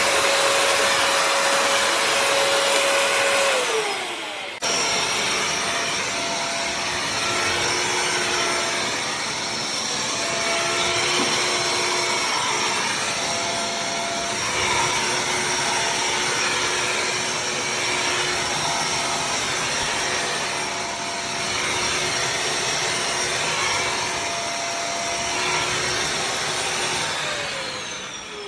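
Bissell CrossWave HydroSteam Pet wet-dry vacuum running with a steady motor whine. The whine falls as the motor winds down about four seconds in, then cuts off abruptly. The motor is running again right after and winds down once more near the end.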